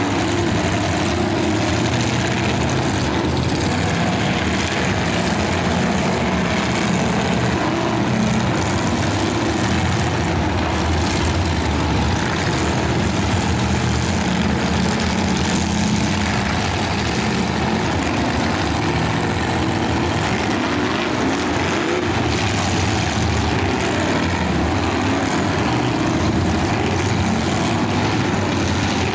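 Engines of several full-size demolition derby cars running together, a loud, steady mass of engine noise with no break.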